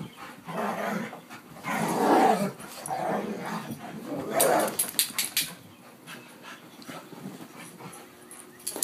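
Dogs growling in play as they wrestle, in several rough bursts over the first half, with a few sharp clicks near the middle, then quieter.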